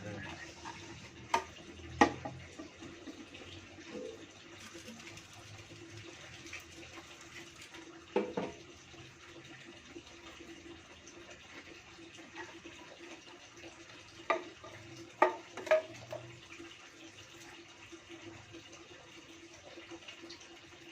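Steady hiss of running water, with a handful of short, sharp knocks and clicks: two close to the start, one about eight seconds in, and a cluster of three around fourteen to sixteen seconds in.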